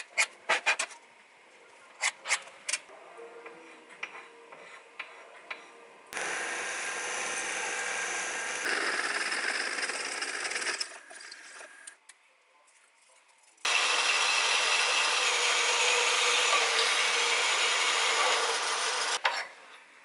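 A few sharp clicks and taps of hand tools on a metal plate. Then a twist drill cuts into metal held in a machine vise for about five seconds. After a short lull, a metal-cutting bandsaw runs through a cut for about six seconds and stops near the end.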